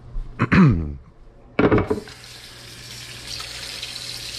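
Kitchen faucet running into a stainless steel sink, water splashing over hands being rinsed above a wooden cutting board; the water comes on suddenly about a second and a half in and then runs steadily. Just before it, a short sound falling in pitch.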